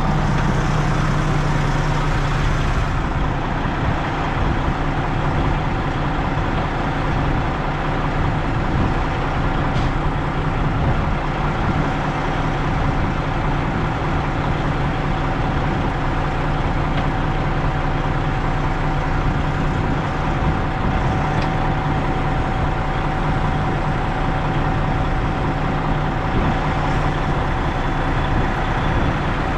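Semi truck's diesel engine running steadily, a continuous low drone with a thin, even hum over it.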